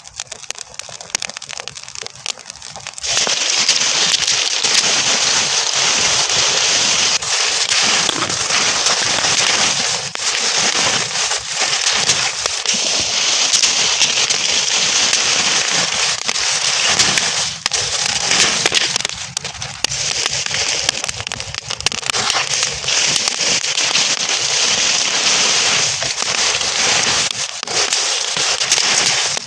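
Burning straw crackling. Sparse pops at first, then about three seconds in a dense, loud crackling hiss of flames takes over and keeps on.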